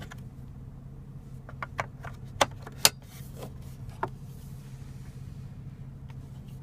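A BMW 435i's centre-console ashtray cover and plastic tray are slid and handled: a string of light plastic clicks and knocks, mostly in the first four seconds. A steady low hum runs underneath in the cabin.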